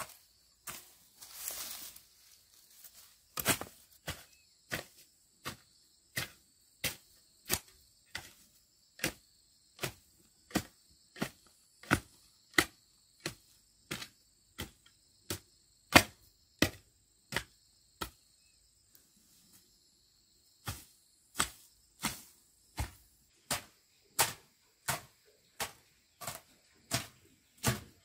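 A hand hoe chopping into soil and weeds in steady strokes, about three strikes every two seconds, with a pause of a couple of seconds about two-thirds of the way through. Insects shrill faintly and steadily behind the strokes for most of it.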